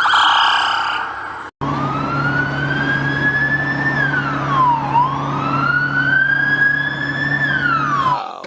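Police car siren wailing, sliding slowly up, down and up again, then falling away near the end, over a steady low hum. Before it, for about the first second and a half, a fast warbling siren tone cuts off abruptly.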